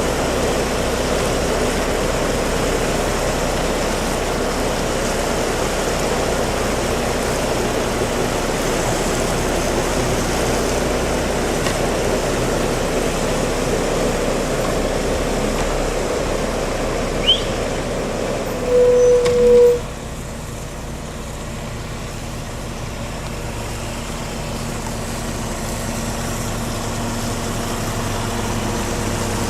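Heavy truck engine running steadily, with a short, loud beep about nineteen seconds in, after which the engine noise drops a little.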